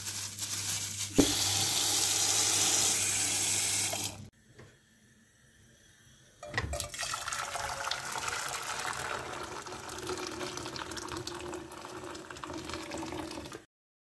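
Tap water running into a plastic bowl of frozen broad beans as they are rinsed, with a knock about a second in. After a short silent gap, water is poured from a kettle into a metal cooking pot and stops shortly before the end.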